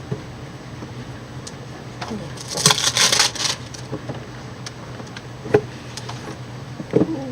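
Handling noises: light clicks and knocks, with a rustling burst lasting about a second from two and a half seconds in.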